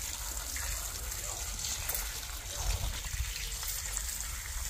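A steady stream of running water pouring into a steel bowl of cut jackfruit pieces and splashing, while a hand stirs the pieces to wash them.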